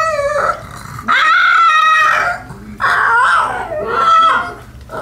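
A pug "singing": a string of drawn-out, wavering high whines and howls, about four calls with short breaks between them.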